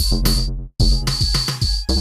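Electronic background music with a drum-machine beat and short, rhythmic synth chord stabs over heavy bass. The music drops out for an instant about three quarters of a second in.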